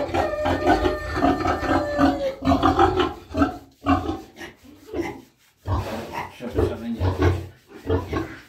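Pietrain pigs grunting repeatedly in short low bursts. A drawn-out higher tone is heard in the first two seconds.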